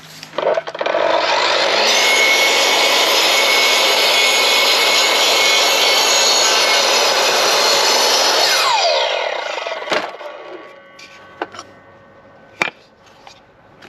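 Electric circular saw spinning up and cutting through oak cladding for about seven seconds, then winding down. Its blade is dull and not cutting well. A couple of sharp knocks follow.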